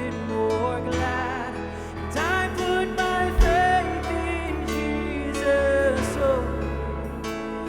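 Live worship band playing a song on synth, piano, guitars, bass and drums. A melody line glides between held notes on top, and there is one sharp low hit about three and a half seconds in.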